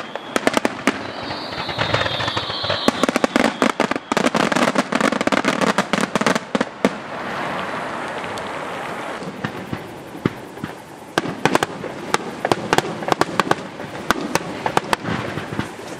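Aerial fireworks bursting with dense runs of rapid sharp cracks and crackling, easing off briefly in the middle before another volley. A high whistle sounds about one to three seconds in.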